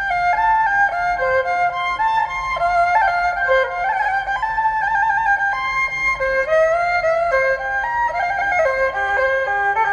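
Instrumental background music: a single melody line of held notes stepping up and down over a soft low backing.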